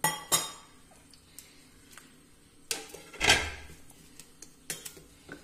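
Kitchen handling sounds around a steel pan of water and chopped pineapple: a couple of sharp clicks at the start, one louder thump about three seconds in, and a few light clicks near the end.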